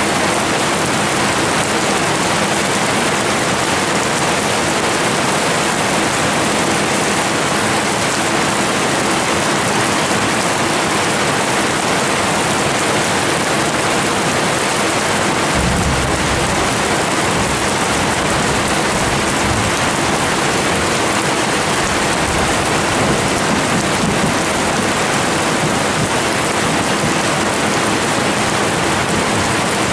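Steady hiss of heavy rain. About halfway through, a low rumble joins in underneath.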